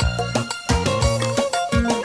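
Live band playing an instrumental break between sung lines of a Sinhala pop song: a steady beat with a bass line and held keyboard notes.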